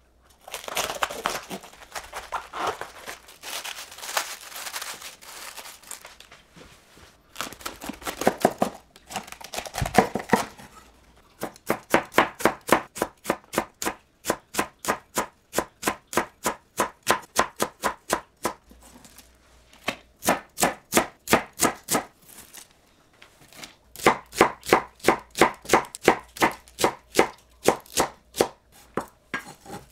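Large kitchen knife cutting through a whole head of cabbage, with a heavy knock about ten seconds in. It then shreds the cabbage thinly with quick, even strokes, about four a second, striking a wooden cutting board in runs with short pauses.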